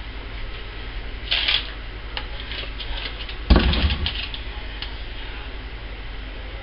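A paper-lined wooden soap loaf mold handled and set down on the countertop with one solid thump about three and a half seconds in, followed by a few small knocks. A brief rustle of the paper liner comes earlier, over a steady low hum.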